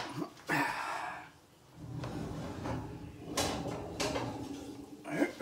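Kitchen handling noise of a cast iron pan being moved at the oven: a sharp clack, a brief scraping rush about half a second in, then two more knocks near the end.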